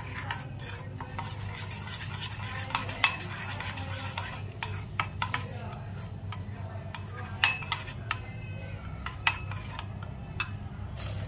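Metal spoon stirring a thick creamy mixture in a bowl: continuous wet scraping with irregular clinks as the spoon knocks the bowl's side.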